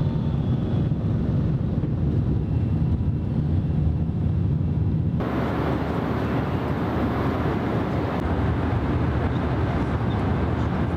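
Inside a jet airliner's cabin in flight: a steady low rumble of engines and rushing air. About five seconds in it turns brighter, with more hiss.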